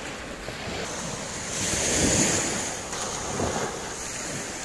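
Small sea waves breaking and washing up a sandy beach, with one wave surging in louder about two seconds in, and wind buffeting the microphone.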